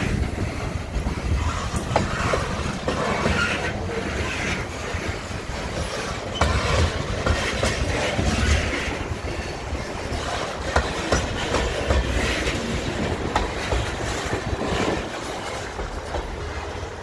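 Freight train of loaded covered hopper cars rolling past at close range: a steady rumble of steel wheels with repeated clicks as the wheels cross rail joints. It eases slightly as the last car goes by near the end.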